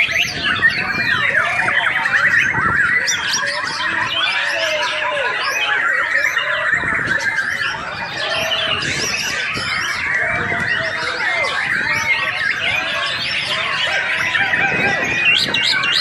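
White-rumped shama singing a continuous, fast stream of varied whistled notes that rise and fall in pitch.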